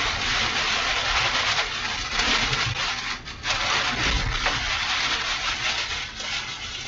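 Rear-flank-downdraft wind and wind-driven rain buffeting a moving vehicle: a steady loud rush of wind and rain noise, with a brief lull about three seconds in.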